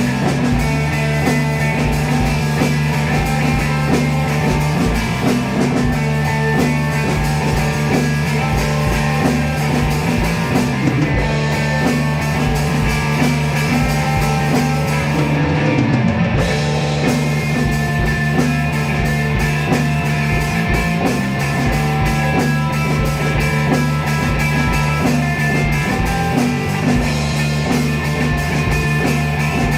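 Psychedelic rock jam: electric guitar and drum kit playing steadily over a sustained bass line.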